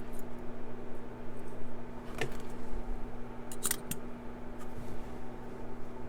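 Small metal lock parts clicking as a disassembled lock cylinder is worked apart by hand: a light click about two seconds in and a sharper pair of clicks a little after halfway, over a steady low hum.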